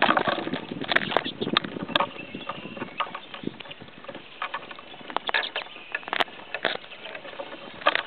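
Irregular clicks and taps of pine grosbeaks and Cassin's finches pecking seed and scrabbling on a wooden platform feeder close to the microphone, thick at the start, sparser in the middle, and picking up again about five seconds in.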